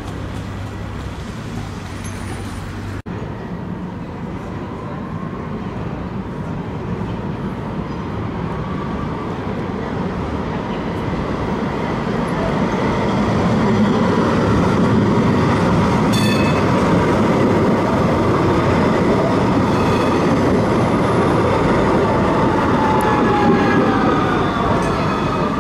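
Eurotram tram running on rails: a steady rolling rumble that grows louder about halfway through, with the whine of its electric drive. Near the end the whine falls in pitch as the tram slows.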